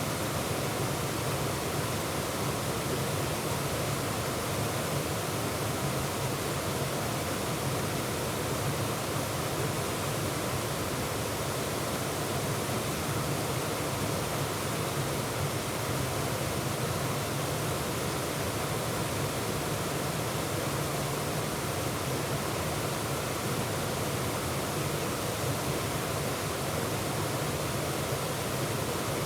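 Waterfall pouring: a constant, even rush of falling water with no breaks or changes.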